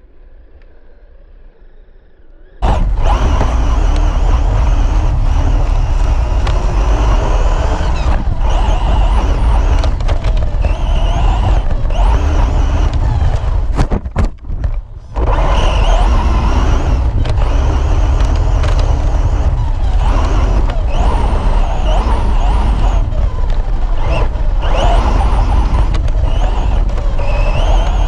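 Electric RC short-course buggy driving hard, starting about two and a half seconds in: a loud rush of tyre-on-ground and wind rumble with a motor whine that rises and falls, broken by a short drop near the middle.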